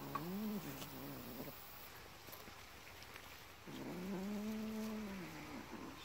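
Domestic cat giving two long, low yowling growls, each rising and then falling in pitch, the second starting a little past the middle: the possessive warning of a cat guarding its caught bird.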